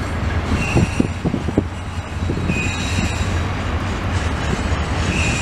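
CN double-stack container freight train rolling past: a steady low rumble of wheels on rail. Several knocks come in the first two seconds, and three brief high wheel squeals sound, near the start, in the middle and near the end.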